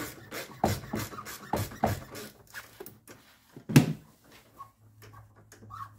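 A metal hand tool scraping, clicking and knocking against fittings and brackets in a car's engine bay as a part is pried loose. There are several short knocks in the first two seconds and one sharp, loud knock in the middle.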